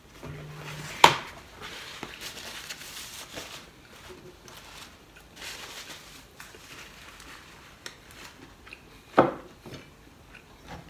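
Hands peeling the shells off steamed prawns, with intermittent crackling of shell, and two sharp knocks of tableware, about a second in and near the end.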